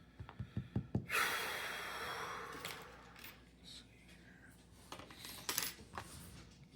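Small metal objects being handled: a quick run of light clicks, then a metallic rattle that rings and fades over about two seconds, then a few more scattered clicks.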